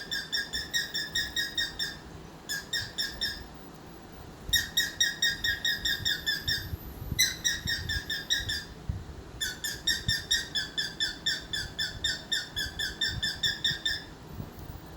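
Pet cockatiel chattering and whistling: rapid runs of short, evenly pitched notes, several a second, in five bursts with brief pauses between them.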